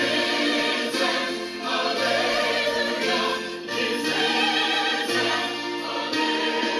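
A choir singing church music, continuous and steady in level.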